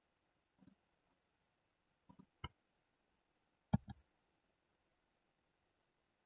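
Faint computer mouse clicks, about six in all, several in quick pairs, the loudest a little under four seconds in.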